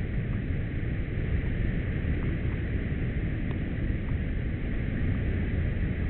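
Steady rushing noise with a heavy low rumble, and a few faint ticks.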